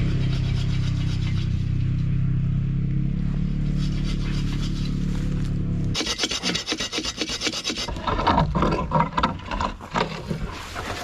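A steady low engine drone for about six seconds, then an abrupt change to a hand saw cutting wood, with quick back-and-forth strokes through to the end.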